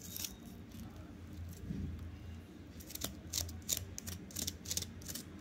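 Kitchen knife cutting and scraping the seedy core out of a raw guava half: an irregular run of short, crisp scrapes and clicks, most of them in the second half.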